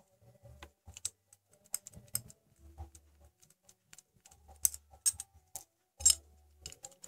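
Scattered small metal clicks, clinks and light knocks of engine parts and tools being handled while a Yamaha Vixion's cylinder head is opened up to get at the rocker arms. The clicks grow busier and louder from about four and a half seconds in.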